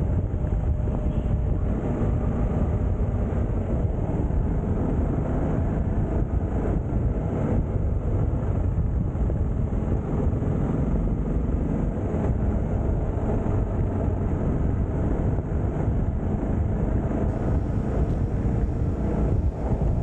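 TVS Apache RR 310 motorcycle on the move: the engine running steadily under wind rush on the camera microphone.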